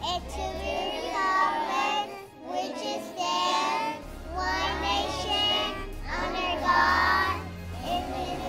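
A class of young children reciting the pledge together in unison, many voices chanting in phrases with short pauses between them.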